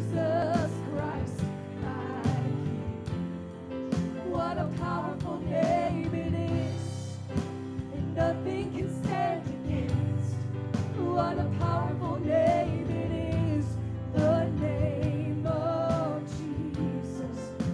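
Live gospel worship music: several singers singing a praise song over a band, with drums keeping the beat.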